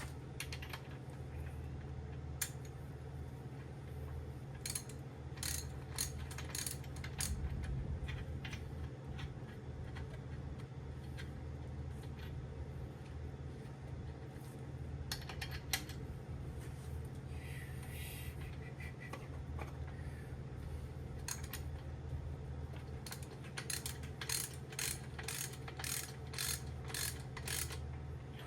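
Ratchet wrench clicking in short runs as a main bearing cap's bolts are run down on an engine block, over a steady low hum.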